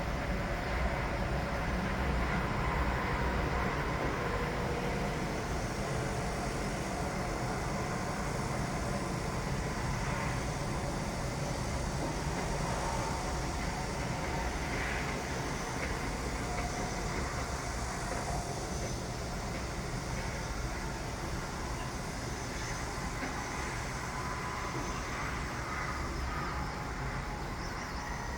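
Construction machinery running steadily: a continuous low rumble with a faint steady whine over it, without distinct impacts.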